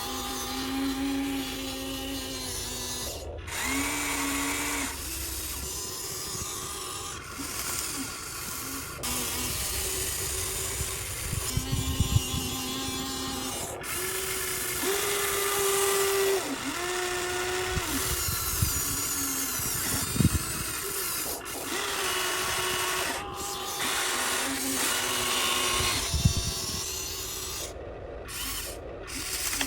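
Electric motors of a Huina radio-controlled excavator whining in short runs of a second or two, the pitch changing as different motors start and stop. A few sharp knocks come in between.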